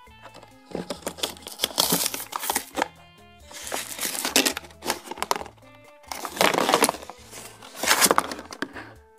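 Plastic blister packaging of badminton shuttlecocks being crinkled, crackled and torn at by hand in several rough bursts, over background music.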